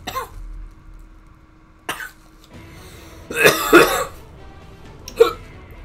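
Coughing and hacking from a mouthful of extremely spicy food. A few short harsh coughs come first, then the loudest and longest fit about three and a half seconds in, and one more short cough near the end.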